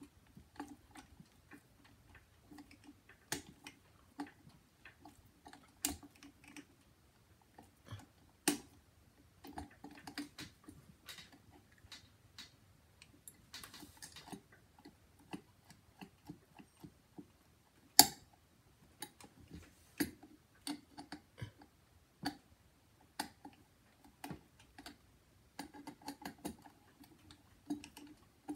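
Irregular light clicks, taps and knocks of small hardware and tools being handled, with one sharper knock well past halfway and a brief hiss near the middle.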